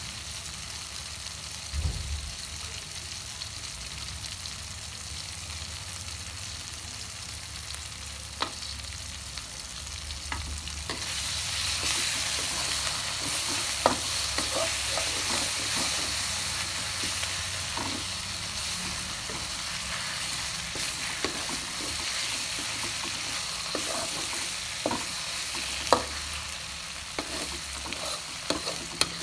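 Chilli spice paste with leaves and lemongrass sizzling as it is sautéed in a metal wok, stirred with a spatula that clicks and scrapes against the pan now and then. The sizzle grows louder about a third of the way through.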